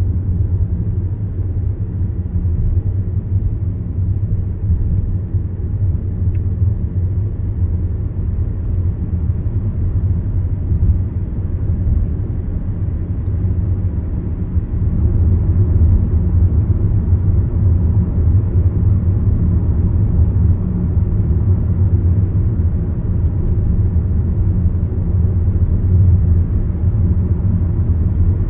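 Car driving at road speed, heard inside the cabin: a steady low rumble of engine and tyres on the road, growing a little louder about halfway through.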